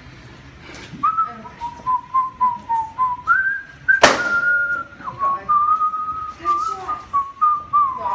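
A person whistling a tune of held, wavering notes that step up and down, starting about a second in. A sharp knock sounds about halfway through.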